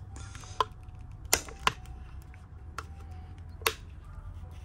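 Sharp plastic clicks, five in all and spread unevenly, as a small screwdriver pries at the clips of the brittle plastic PCV valve cap on the valve cover. A low steady hum runs underneath.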